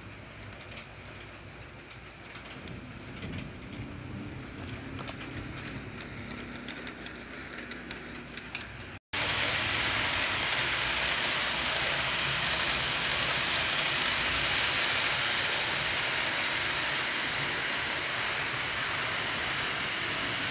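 HO-scale model diesel locomotives running along the layout track: a steady rushing hiss of small wheels and motors, with light clicks in the first part. The sound turns much louder and brighter about nine seconds in.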